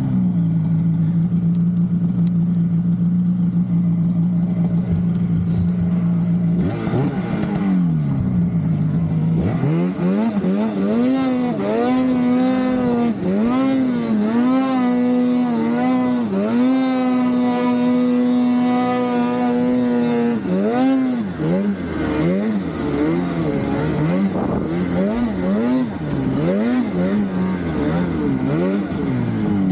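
Naturally aspirated Polaris Khaos two-stroke snowmobile engine under way. It holds a steady pitch for about seven seconds, then revs up and down again and again as the throttle is worked.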